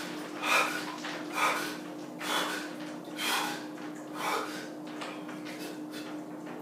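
A man sitting in ice-cold bath water breathing hard and fast through his mouth, sharp breaths about once a second from the shock of the cold. The breaths die down after about five seconds.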